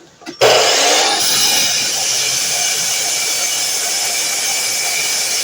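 DeWalt miter saw switched on about half a second in, its motor and blade then running loud and steady.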